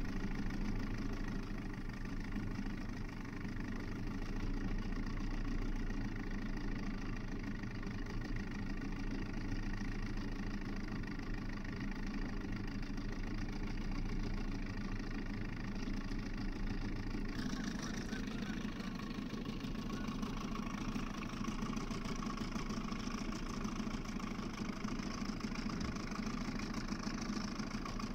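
Small outboard kicker motor running steadily at trolling speed, an even engine drone. About 17 seconds in, the tone of the drone changes abruptly.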